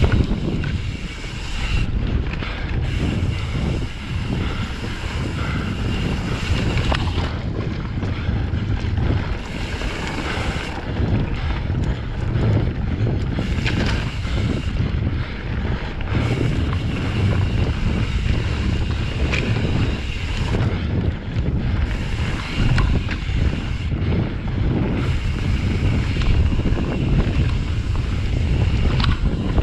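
Wind buffeting a GoPro's microphone as a Pyga Hyrax mountain bike rides down a dirt flow trail, over a low rumble of tyres rolling on dirt. The bike gives the odd sharp knock over bumps.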